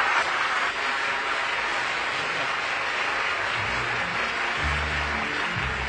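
Studio audience applauding over the orchestra's closing bars of a big-band song, with low bass notes coming in near the end.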